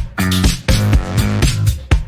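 Upbeat funky electronic background music with a punchy beat and bass line.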